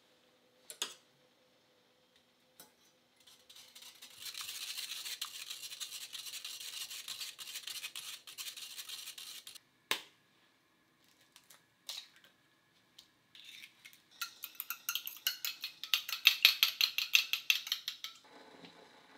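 An egg knocked on the rim of a small stainless-steel pan, then beaten fast with chopsticks, the chopsticks clicking rapidly against the metal near the end. Earlier there are several seconds of steady scratchy rustling.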